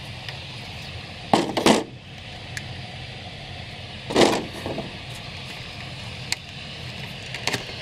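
A few short rustles and clicks of handled plastic as a vinyl-and-plastic action figure's detachable wing is fitted and its clear packaging is moved, twice in quick succession about a second and a half in and once more loudly about four seconds in, over a steady background hum.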